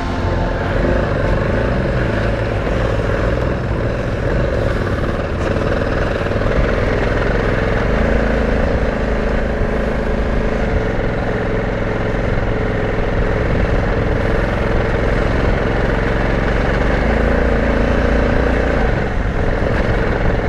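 Motorcycle engine running under way, its note stepping up and down a few times, over a steady rushing noise.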